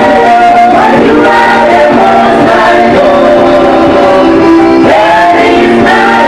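Congregational worship music: singers with a live band playing, loud and continuous.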